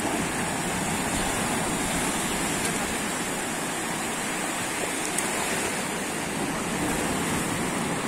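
Sea surf washing in at the shoreline: a steady, continuous rushing of water.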